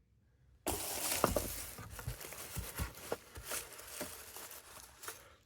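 Dry scraping and rustling of debris being swept together on a beehive's bottom pest-control tray, with many small clicks. It starts suddenly under a second in and tapers off near the end.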